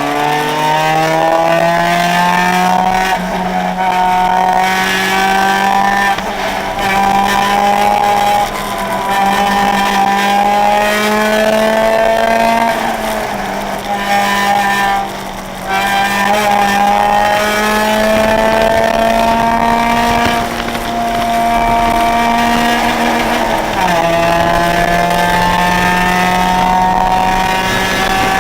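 Car engine heard from inside the cabin, running hard around a race track. Its pitch climbs under acceleration and falls back again and again at gear changes and braking. There is a brief lift about halfway through.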